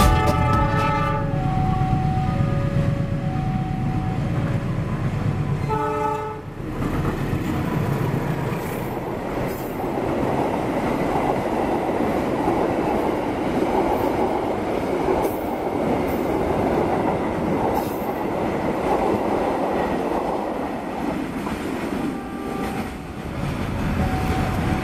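Diesel-hauled passenger train with a deep locomotive rumble and a short horn sounding about six seconds in. The coaches then pass close by in a long, steady rush of wheels running on the rails.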